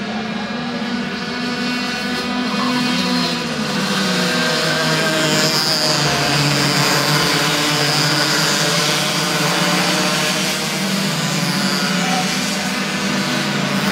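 Several 60cc two-stroke kart engines buzzing together as a pack of karts races by. Their pitches waver and overlap as the drivers lift and accelerate, and the sound grows louder over the first few seconds.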